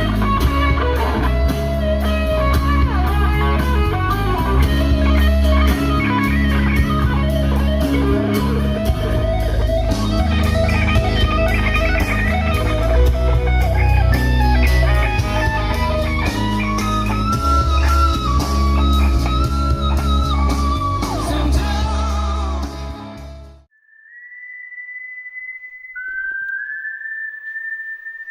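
Rock music with guitar and heavy bass played through a DIY portable Bluetooth speaker with Dayton Audio parts. The music cuts off abruptly near the end and is followed by a few held, whistle-like high tones that step in pitch.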